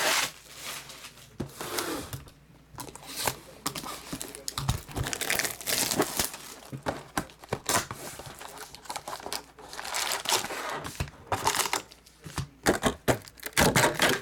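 Plastic wrap and foil card packs crinkling and tearing as a trading-card box is unwrapped and its packs handled: irregular crackles and rustles, with a louder burst of crinkling just before the end.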